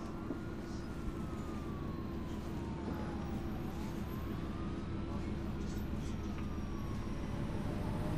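Steady low rumble of a moving bus heard from inside, with a faint siren wailing slowly up and down twice.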